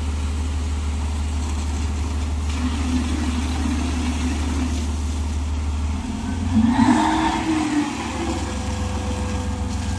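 Heavy diesel engine of mining machinery running with a steady low drone. About two-thirds of the way through the sound changes and briefly grows louder with a surge in revs.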